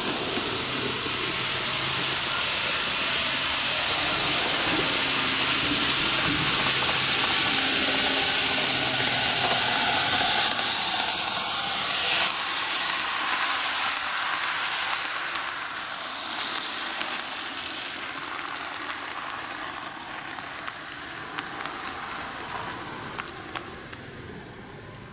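N-gauge model electric trains (Keihan 1000 and 7200 series) running on curved track: a steady whir and rolling hiss of motors and wheels that grows loudest as one train passes close about halfway through, then dies away with scattered sharp ticks as it slows to a stop.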